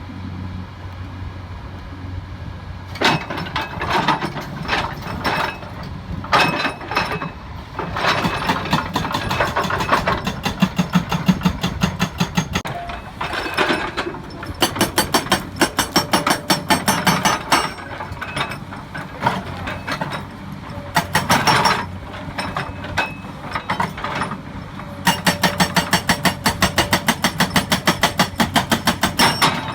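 Hydraulic rock breaker on a Komatsu excavator hammering rock in bursts of rapid, evenly spaced blows, with the excavator's diesel engine running steadily between bursts. The hammering starts a few seconds in and the longest run of blows comes near the end.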